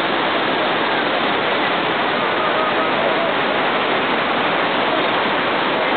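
The Devil's Throat (Garganta del Diablo) of Iguazu Falls: a huge volume of water plunging into its mist-filled gorge, heard as a steady, even rush of falling water that never lets up.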